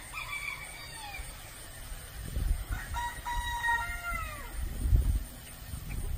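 Rooster crowing twice: a call at the start and a second, slightly lower one about three seconds in, each held and then falling away at the end. Low rumbling noise comes in between and near the end.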